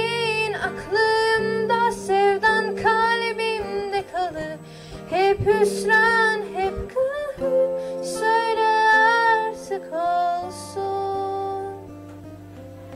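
A teenage girl singing a slow song into a handheld microphone over guitar accompaniment, with long held notes. Her voice stops about ten and a half seconds in, and the guitar plays on alone.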